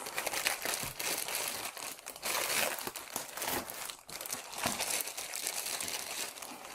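Packaging crinkling and rustling continuously, with many small crackles, as a keyboard is lifted out of its box and wrapping.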